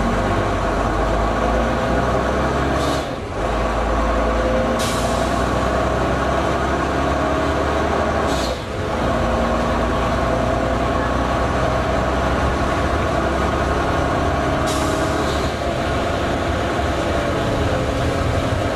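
Leyland Olympian double-decker bus heard from on board, its diesel engine running under way. Three short hisses of air being let out, the bus's 'sneezing', come about 3, 5 and 15 seconds in. The engine note drops briefly twice.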